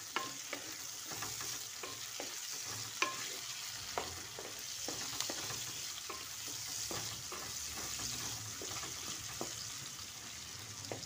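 Sliced onions sizzling in hot oil in a kadai, with a spatula stirring and scraping against the pan in short, irregular strokes, about one or two a second.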